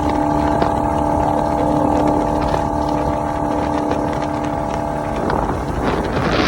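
Boat engine running at a steady pitch, a constant drone. About five seconds in, a rushing, splashing noise builds up and becomes the loudest part near the end.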